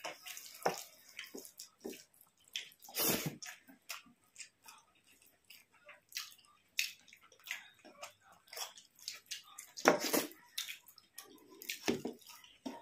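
Wet mouth and hand sounds of rice with fish curry being eaten: irregular smacking, chewing and squelching, with a few louder ones about three and ten seconds in.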